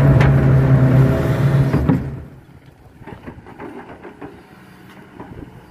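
KATO tracked excavator's diesel engine running loud and steady under load, heard from inside the cab, with a knock near the end of it. About two seconds in, it drops away to a faint engine hum heard from a distance.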